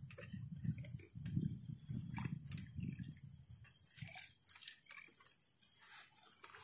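Faint close-up handling noises: irregular low bumps, rustling and small clicks from an angler's hands working low at the water's edge. They are strongest in the first four seconds and thin out to scattered light ticks after that.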